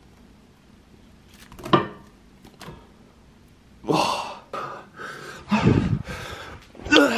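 Short breathy vocal sounds from a man, like gasps or huffs, coming in several separate bursts, the loudest about two thirds of the way through.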